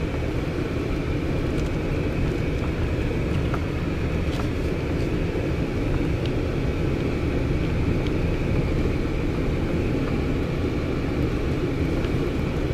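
Steady engine and road rumble of a vehicle driving along a dirt road, with a few faint ticks scattered through it.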